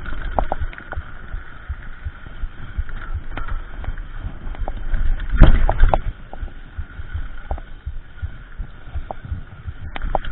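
Mountain bike rolling fast over a dirt singletrack: irregular thumps and rattles as the bike and camera jolt over bumps, with a steady rush of noise, and a louder jolt about five and a half seconds in.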